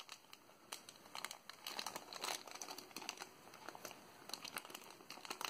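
Small clear plastic zip-lock bag crinkling as fingers handle it: faint, irregular crackles and small ticks.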